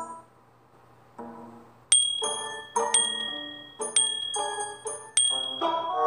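Background music of bright, bell-like struck notes with a high ringing tone that recurs, after a pause of about a second near the start.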